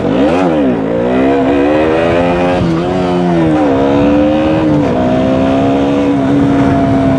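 KTM Duke 125's single-cylinder four-stroke engine accelerating: a quick rev right at the start, then the revs climb and drop back at each of several upshifts before settling into a steady, slowly falling note as the bike cruises.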